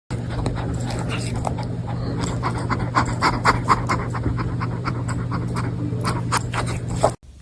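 A cat making a run of quick, short, breathy sounds, irregular and repeated many times, over a steady low hum; it cuts off abruptly near the end.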